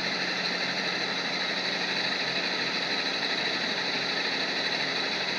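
An engine idling steadily, with an even, unchanging running note.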